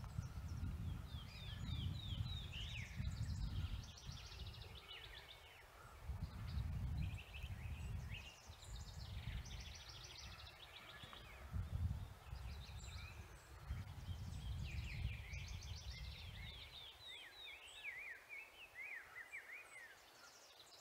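Several songbirds singing, with quick trills and chirps overlapping all through. A louder low rumble on the microphone comes and goes in gusts and fades out near the end.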